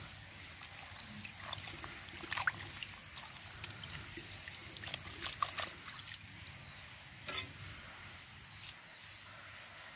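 Water splashing and trickling in a clay bowl as hands swish and rinse a bunch of water hyacinth flowers, with many small irregular splashes and drips. One louder, short click stands out about seven seconds in.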